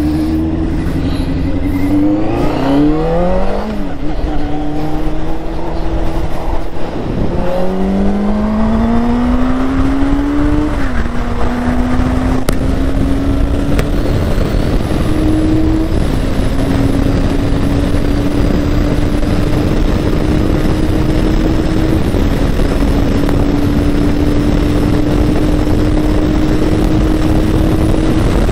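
Motorcycle engine pulling away and accelerating up through the gears: its pitch climbs and drops back at each upshift, three times in the first half. It then settles to a steady, slowly rising tone at highway speed over a wide rush of wind and road noise.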